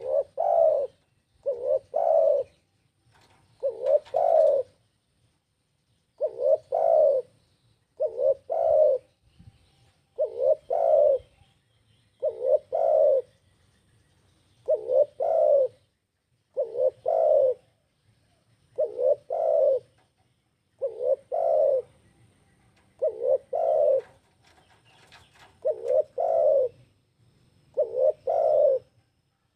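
Spotted dove cooing: a low, repeated coo phrase of two or three notes, given about every two seconds.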